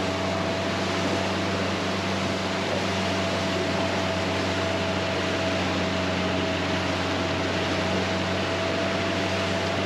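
Honda 135 four-stroke outboard motor running steadily with the boat under way, a constant hum with a thin higher whine over a rush of wind and water from the wake.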